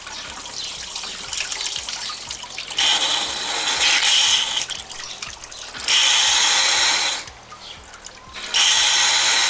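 Coolant draining from a car's radiator, running and splashing steadily, with three loud rushing surges about 3, 6 and 9 seconds in as air is blown into the cooling system to force the remaining water out.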